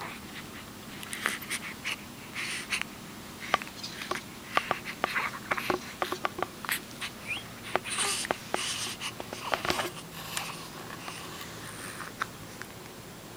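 A pet sneezing and snuffling in a run of short breathy bursts, mixed with scattered sharp clicks.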